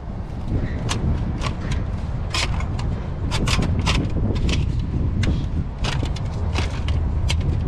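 Metal license plates clacking and scraping against one another as they are flipped through by hand in a wire basket: a string of irregular sharp clinks, over a steady low rumble.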